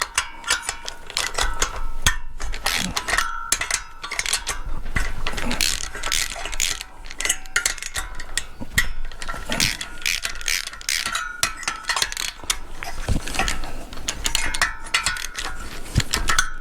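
Hand socket ratchet wrench clicking in quick repeated runs as bolts are wound out by hand.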